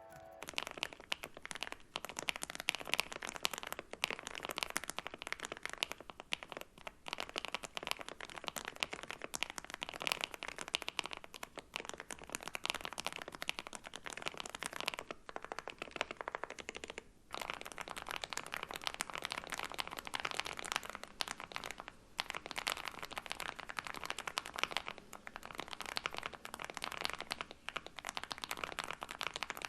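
Rapid typing on an Akko Mod007 V3 mechanical keyboard with Akko Matcha Green Pro switches and Mochi Dango keycaps, modded with foam under the plate and tape on the PCB: a dense, continuous stream of key clacks. After a short break about 17 seconds in, the typing resumes on the board rebuilt with its PC plate instead of the FR4 plate.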